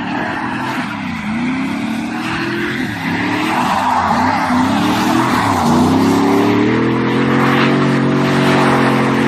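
Car engine revving up and down in quick swings, then held at steady high revs from about halfway through, with tyres skidding.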